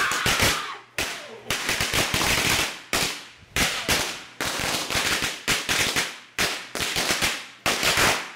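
Firecrackers going off in rapid strings: dense crackling pops in about eight loud waves, each lasting roughly a second, with brief gaps between them.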